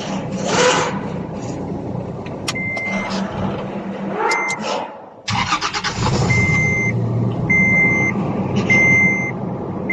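Toyota Land Cruiser LC70 engine being started: it comes in suddenly and louder about five seconds in and keeps running, while a dashboard warning chime beeps repeatedly about once a second. The truck has a no-start problem when cold.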